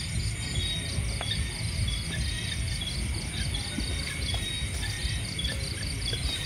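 Night chorus of crickets and other insects, a steady, rapidly pulsing chirping, over a low steady rumble with a few faint clicks.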